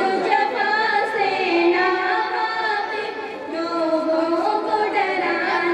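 Girls' voices singing a tarana (devotional song) together into microphones, in long held notes that waver and slide between pitches.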